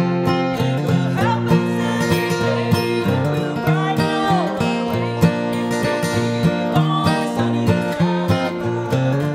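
Bluegrass band playing: acoustic guitar, mandolin and banjo picking a steady up-tempo rhythm, with a woman singing the melody.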